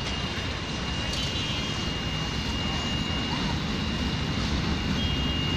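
Steady road-traffic engine noise, with a low rumble slowly building toward the end as an approaching train nears.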